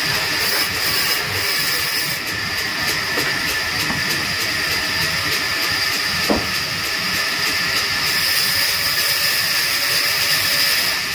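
Large vertical band saw running and ripping through a heavy timber beam: a steady hissing whine with strong high tones. A single short knock about six seconds in.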